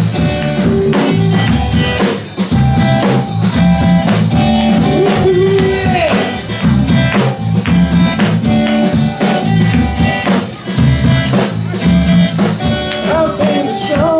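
Live band playing the instrumental intro of a country song: a steady drum-kit beat with electric guitar and bass, including a few bent guitar notes.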